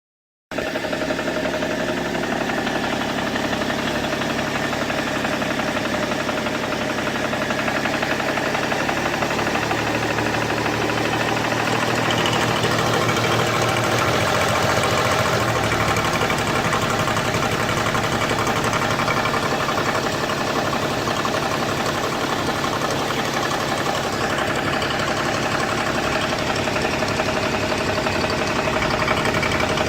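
BMW E61 525d's straight-six diesel engine running steadily, starting about half a second in. It carries an unidentified noise that the owner is asking about.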